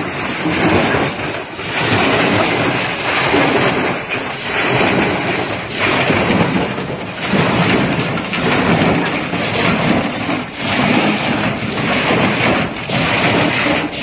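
Washing machine running with a large stone in the drum: loud, continuous rumbling and rattling that swells and dips about once a second or so, with sharp knocks mixed in.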